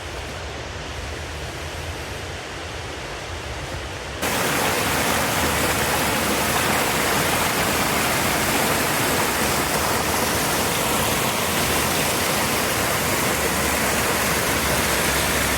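Waterfall rushing steadily, a constant hiss of gushing water; about four seconds in it jumps suddenly louder and brighter, as if much closer to the falling water.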